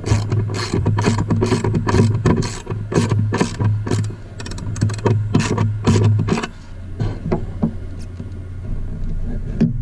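Metal clicks and knocks as a directional panel antenna's bracket is handled and slid against a steel mast pipe, several irregular strikes a second, over a steady low hum that stops about six seconds in.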